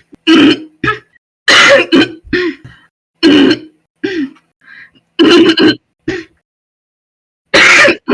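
A young woman, a smoker, clearing her throat hard again and again: about five loud, harsh rasping bursts, with shorter, smaller ones between them.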